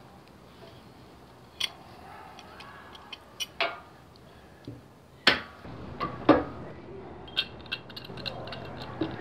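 Scattered sharp clicks and knocks of a metal clamp being fitted onto plastic boards and its T-handle screw turned, with the loudest knock about five seconds in.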